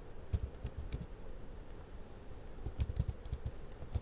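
Computer keyboard typing: a few separate keystrokes, then a quicker run of keys about three seconds in.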